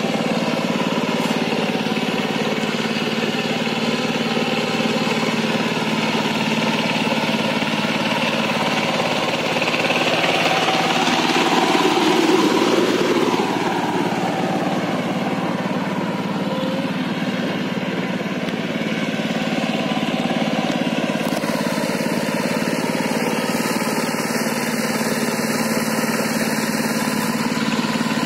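Two-wheel power tiller's single-cylinder diesel engine running steadily under load as it works through flooded paddy mud, a little louder for a few seconds around the middle.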